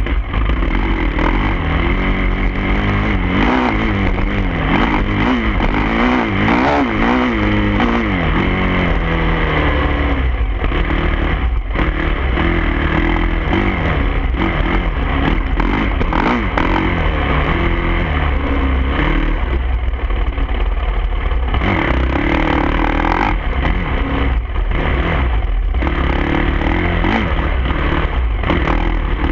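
Dirt bike engine heard from the rider's own bike, revving up and down repeatedly as it is ridden over a rough trail, with wind rumble on the microphone.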